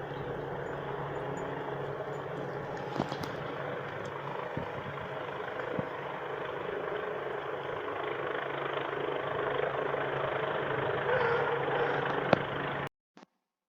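Steady engine drone with a constant low hum and a noisy rush, a few faint clicks on top, cutting off abruptly near the end.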